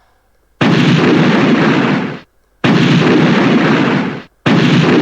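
An audio clip on a presentation slide played back three times, one after another: three loud bursts of rough, rushing noise, each about a second and a half long, each starting abruptly and stopping.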